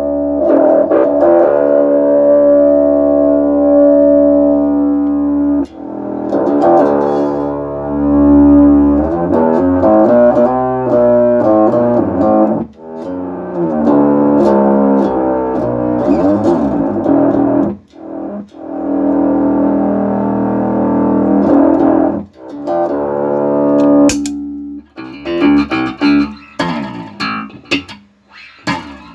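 Electro-Harmonix Bass MicroSynth pedal turning plucked notes into synth tones: long sustained notes whose overtones sweep up and down, then shorter, choppier notes near the end. The pedal is working again after its shorted SMD ICs were replaced.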